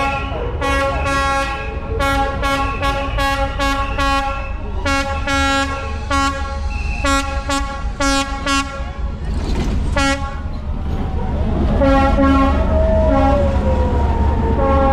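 A train horn sounding over and over in short toots, in quick runs through the first half and again near the end, over the steady low rumble of the train passing close by, which grows louder in the second half.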